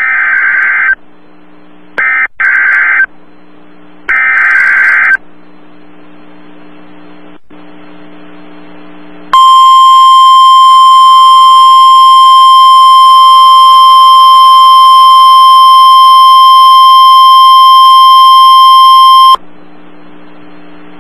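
NOAA Weather Radio emergency alert: three short bursts of SAME digital header data, each about a second long, then after a pause a loud steady 1050 Hz warning alarm tone held for about ten seconds, over a low radio hum.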